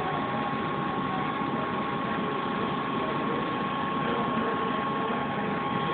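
Coca-Cola Freestyle drink dispenser humming steadily, a constant machine hum with two steady tones and no breaks.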